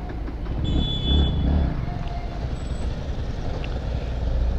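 Motorcycle engine idling steadily with a low rumble, swelling slightly about a second in, over street traffic. A brief high-pitched tone sounds near the start.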